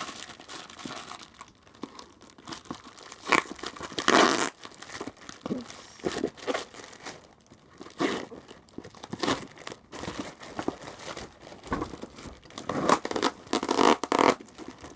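Packaging being torn and crumpled by hand as a parcel is unwrapped, in irregular rustling bursts with a few sharper rips.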